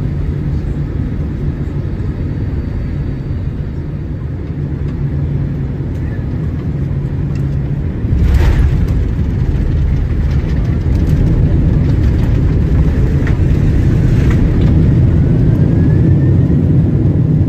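Boeing 767-300ER airliner heard from the cabin on short final: a steady engine drone, then about eight seconds in the wheels touch down with a sudden thud and the sound jumps to a louder rumbling roar as the jet rolls out and slows on the runway, with light rattles in the cabin.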